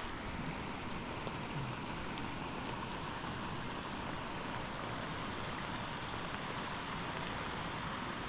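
Steady rushing of a waterfall and its river, an even hiss of falling and flowing water.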